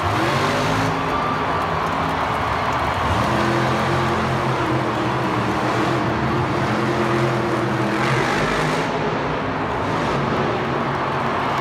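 Monster truck engine running and revving as the truck drives and turns on a dirt arena floor, rising and falling in pitch over a steady arena din.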